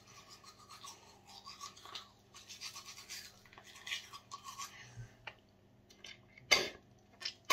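Manual toothbrush scrubbing teeth in quick scratchy back-and-forth strokes, then a short loud noise near the end.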